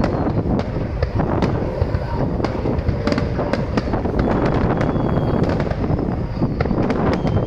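Fireworks display: a dense, continuous run of deep booms and sharp crackling bangs, with a few brief faint whistles.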